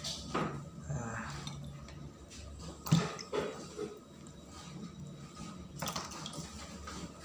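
Whole green chilies being handled and pressed into a glass chopper bowl, with light rustling and clinks against the glass and a sharper knock about three seconds in.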